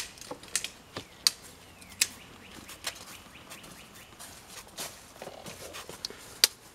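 Plastic squeeze bottle squirting acid in short irregular spurts and clicks, about eight sharp sounds with the loudest near the end, as the liquid is worked onto the sterndrive's gimbal hinge to dissolve marine fouling.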